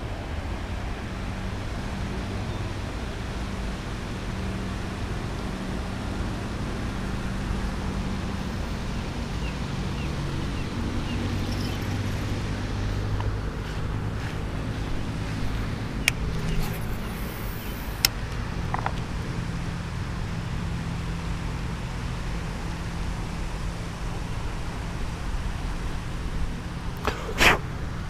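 A motor running steadily in the background, its low hum shifting slightly in pitch. A few sharp clicks come partway through, and a short, loud scrape comes near the end.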